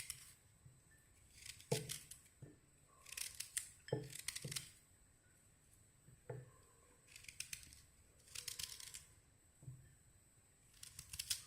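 Fresh ginger being cut into small pieces: short bouts of crisp cuts, each with a soft knock, every second or two.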